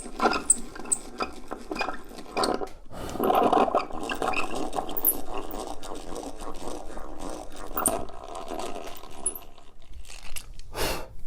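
Hand drill boring a small pilot hole in wood: short separate strokes at first, then several seconds of steadier drilling, with a single sharp knock near the end.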